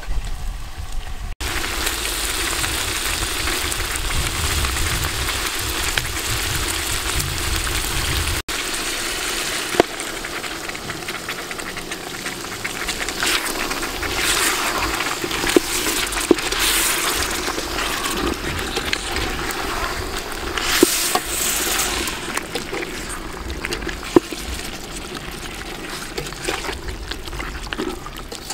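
Chicken and sliced palm fruit sizzling and bubbling in a large metal cooking pot, while a metal ladle stirs and clicks now and then against the pot's side.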